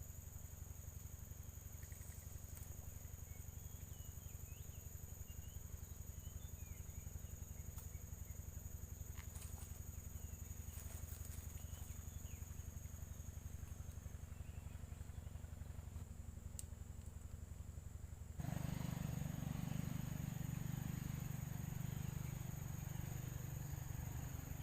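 Insects trilling, one steady high-pitched note held without a break, over a low hum. About three-quarters of the way through, a louder low rumble starts suddenly and goes on to the end.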